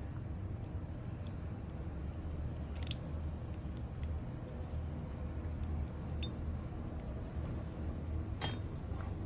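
Steady low room hum, with a few light clicks and clinks of small objects being handled, clearest about three seconds in and near the end.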